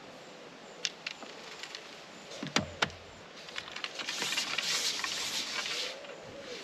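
Fishing tackle handled at the peg: a few light clicks, two sharp knocks, then about two seconds of sliding, rustling hiss as the long carbon pole is moved out over the water.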